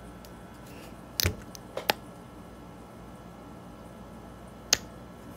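NYX lip oil applicator wand worked in and out of its tube, giving short squishy clicks: a sharp one about a second in, two quick ones just after, and another near the end.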